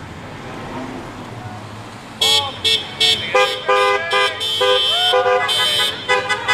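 Car horns honking in a rapid series of short toots from cars driving slowly past, starting about two seconds in.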